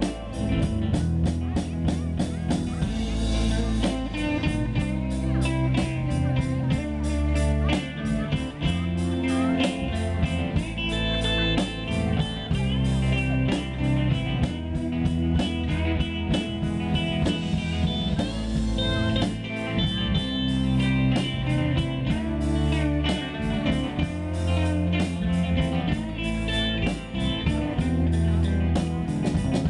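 Live band music: an electric guitar played over a drum kit keeping a steady beat.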